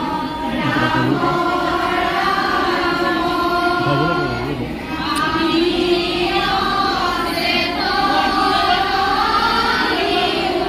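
A group of women singing an Assamese devotional prayer together, with long held notes.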